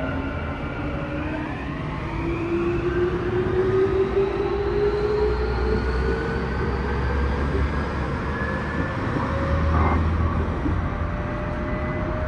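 Tokyu new 5000 series train's Hitachi IGBT-VVVF inverter and traction motors whining under acceleration, several tones climbing steadily in pitch over the rumble of wheels on rail, heard from inside the car.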